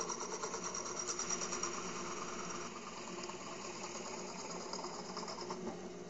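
A drill press running with a hole saw cutting into a stack of glued birch plywood, a fast chattering grind over the steady motor hum. The cutting stops near the end as the saw is lifted out, and the motor keeps running.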